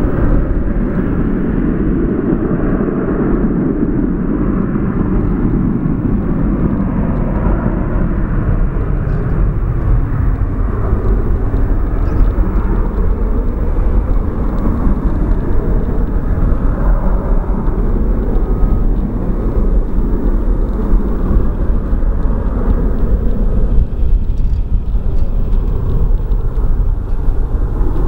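Jet engines of a Southwest Airlines Boeing 737 running as the airliner rolls down the runway away from the listener, a steady roar that is loudest at first and fades over the first ten seconds or so, leaving a low rumble.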